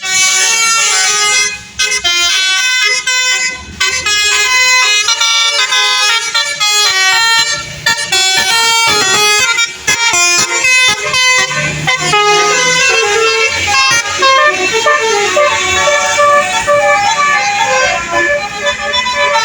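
Basuri telolet bus horns playing loud melodies, one quick run of stepped horn notes after another with hardly a break.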